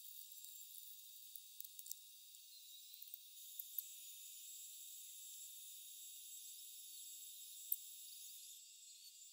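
Faint, high-pitched buzz of electric dog clippers, stronger from about three seconds in until near the end, with a few light clicks.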